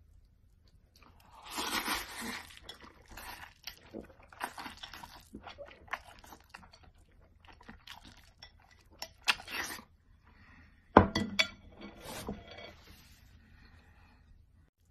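Noisy eating: noodles slurped and chewed in irregular bursts, with clinks of utensils against dishes, the loudest a sharp one about eleven seconds in.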